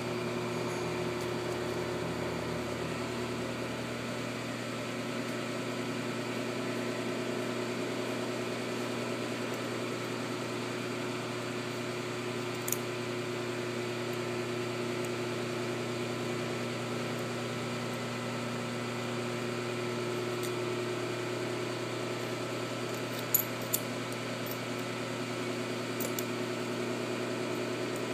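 Steady mechanical hum of running shop equipment, with a few light metallic clicks as parts are handled on a Cummins 855 cylinder head, two of them in quick succession.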